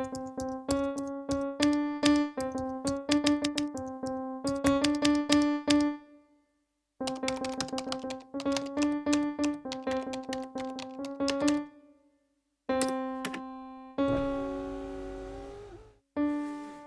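Krotos Studio Genesys sound-pack patch played as notes: rapid runs of short, bright, piano-like struck notes at about three or four a second, in two phrases with a short pause between them. Near the end come a single ringing note, then a hissier sound whose pitch falls, then more notes.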